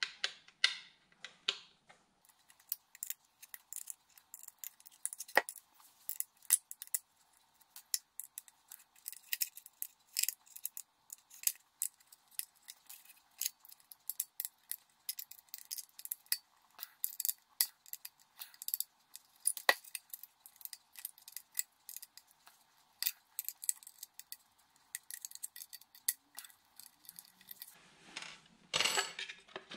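Quick small metallic clicks and ticks of an L-shaped Torx key turning screws out of a plastic rear-view mirror housing, with light handling of the plastic; a denser patch of louder handling noise near the end.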